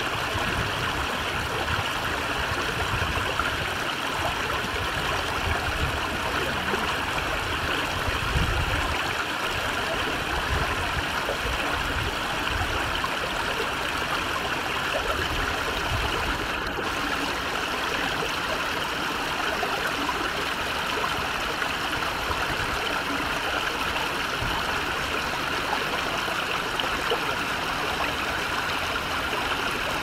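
Water in a shallow rock-lined ditch stream running steadily over stones and small step drops, a continuous splashing trickle.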